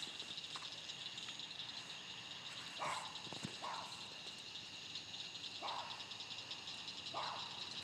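Night insects such as crickets chirping in a steady, high, pulsing chorus. Four short, lower sounds stand out against it, the first about three seconds in.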